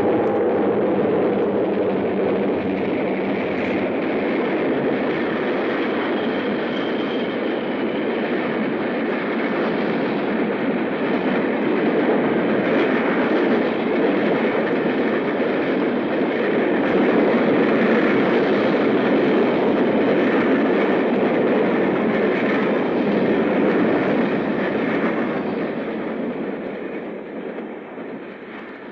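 Union Pacific passenger train passing at high speed: a dense, steady rush of wheels and cars on the rails, with the tail of its diesel horn just at the start, fading away over the last few seconds.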